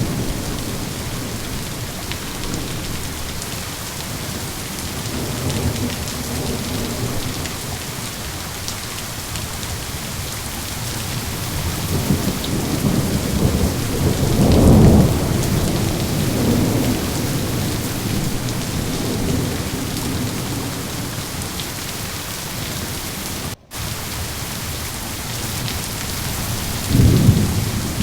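Thunderstorm: steady heavy rain hissing, with rolling thunder that swells to its loudest about halfway through and a fresh clap near the end. A split-second dropout cuts the sound about two-thirds of the way in.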